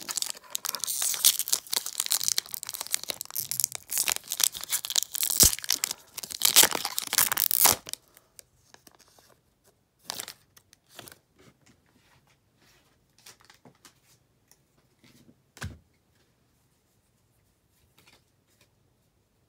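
Foil Pokémon booster pack wrapper being torn open and crinkled for about eight seconds, then a few light taps and clicks of cards being handled, with one sharper knock near the end.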